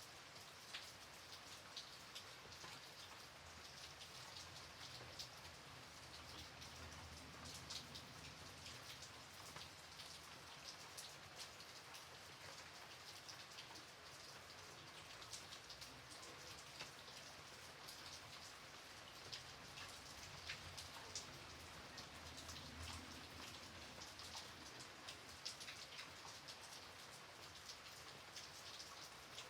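Light rain falling steadily: a soft, even hiss with many separate drop ticks.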